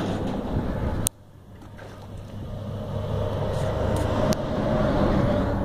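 A vehicle crossing the road bridge overhead: a rumble that swells to its loudest about five seconds in and then starts to fade. Before it, a loud rushing noise cuts off abruptly with a click about a second in.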